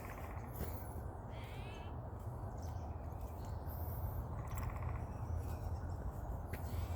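Wild birds calling: a short wavering call about a second and a half in and a harsh, raspy call about two-thirds of the way through, over a steady low rumble.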